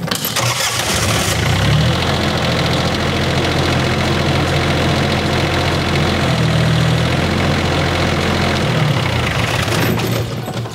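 KIOTI CS Series compact tractor's diesel engine starting up, then running steadily, and dying away near the end.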